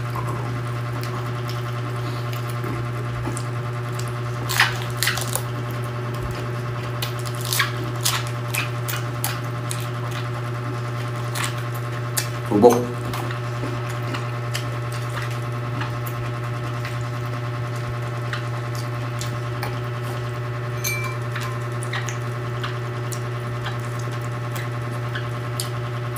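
Close-up eating sounds of raw cabbage leaves being peeled and chewed with rice: scattered irregular crisp clicks and crunches over a steady low hum.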